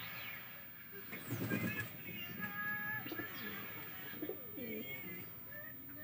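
Budgerigar chattering and warbling in a run of short, wavering chirps and held notes. About a second in there is a louder, lower, muffled sound lasting about half a second.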